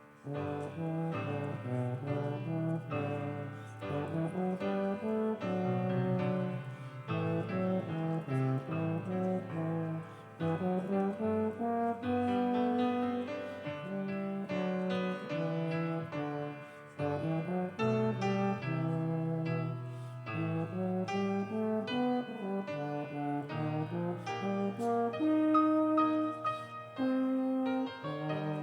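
Instrumental music: a slow melody of sustained notes in a brass sound, with piano or keyboard accompaniment.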